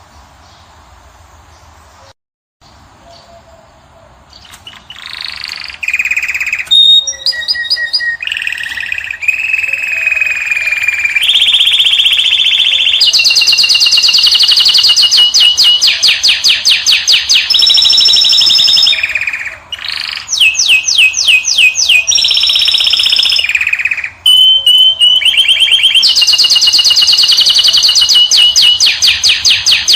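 A finch singing loudly, starting about four seconds in after a quiet opening: high twittering notes and long, fast trills, broken by a few short pauses.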